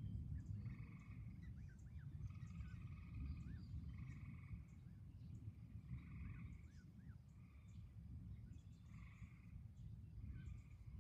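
A chorus of frogs giving repeated trills, each under a second long, several callers overlapping, over a steady low rumble.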